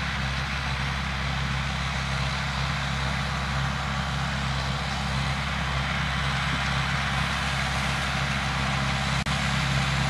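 Farm tractor running steadily while pulling a Case IH round baler that is picking up and baling hay, a constant engine drone with the baler's machinery noise. The sound briefly cuts out near the end.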